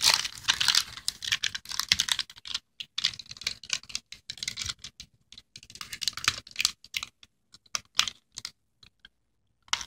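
Crinkly plastic candy wrapper being handled and rustled: a fast, irregular run of sharp crackles, loudest at the start, thinning out and stopping shortly before the end.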